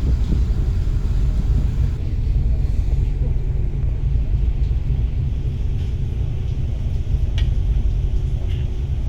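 Steady deep rumble inside a ferry boat under way: the ship's engine drone carried through the hull.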